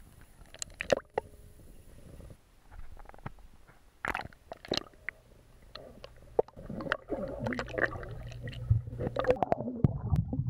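Pool water splashing and gurgling as a phone is dipped and held underwater, heard at and below the water surface, with scattered sharp knocks and a muffled low rumble building in the second half.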